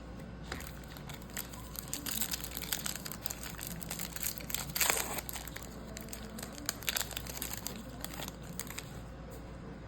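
Crinkling of a foil trading-card pack wrapper being handled and torn open, an irregular run of quick crackles with a louder crinkle about five seconds in.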